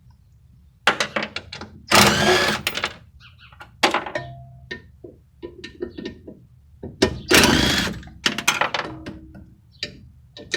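A power driver on a 9/16 socket runs in several short bursts, each under a second, to back out the bolts holding down a power conditioner's transformer, with knocks and clatter of metal between the bursts.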